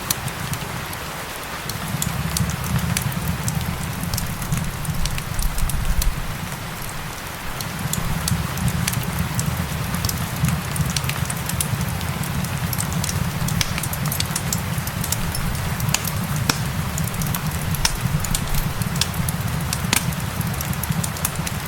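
Wood fire crackling, with frequent sharp pops, over a steady hiss of rain and a low rumble that drops away briefly twice.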